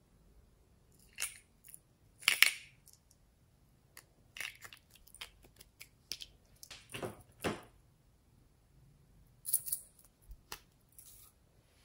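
Handling of a small gold-coloured ornamental trinket box and a small plastic vial of glitter: scattered clicks, taps and light scrapes as the box is opened and the vial is lifted out, the loudest knock about two and a half seconds in.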